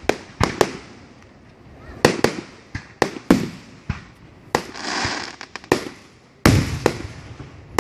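Aerial fireworks shells bursting in quick succession: a string of sharp bangs, with the loudest, deepest boom about six and a half seconds in and a short crackle near the five-second mark.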